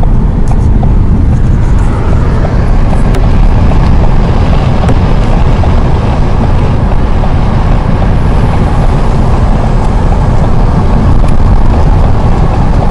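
A car driving along at road speed, heard from inside the cabin: steady road and wind noise, a loud, even low rumble.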